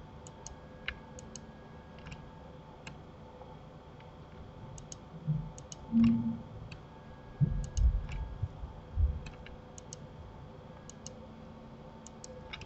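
Computer mouse and keyboard clicking: sharp clicks, many in quick pairs, one or two a second. A few dull low thumps come in the middle, the loudest about six seconds in.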